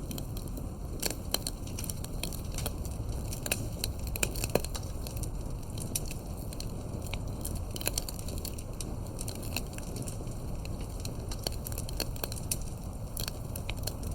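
Wood fire crackling: frequent, irregular sharp pops and snaps over a steady low rumble.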